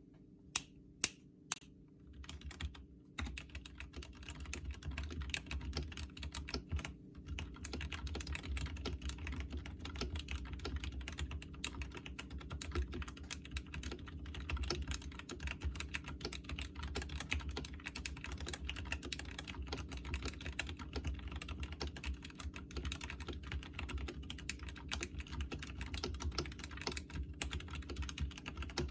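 Ajazz AK33 mechanical keyboard with lubed Ajazz black linear switches and clipped, lubed stock stabilisers being typed on: three separate keystrokes in the first second and a half, then continuous fast typing.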